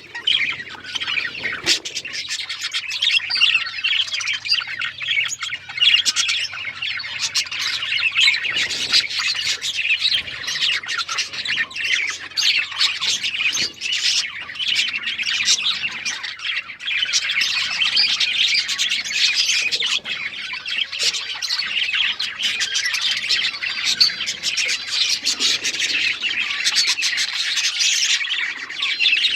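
A flock of budgerigars chirping and chattering continuously, with many overlapping high warbles and squawks.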